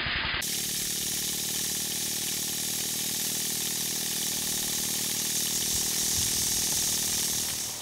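Small model stationary steam engine running fast on live steam, with a steady hiss of steam. The quick, even beat of the engine in the first half second gives way to an unbroken hiss.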